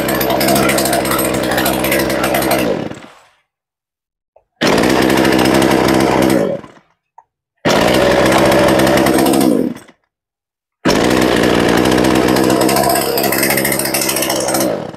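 A 38 cc Husqvarna two-stroke chainsaw idling. It stops about three seconds in, then is started again three times, running steadily for about two to four seconds each time before dying away.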